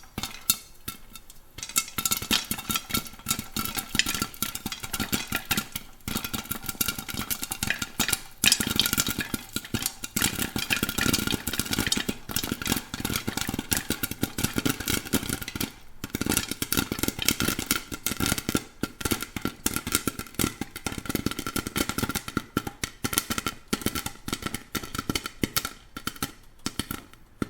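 Popcorn popping: a dense, irregular run of sharp pops that starts about a second and a half in and thins out near the end, over a steady hum.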